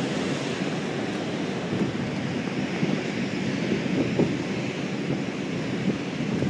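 Storm surf breaking on the shore in a steady rush of noise, with wind buffeting the microphone.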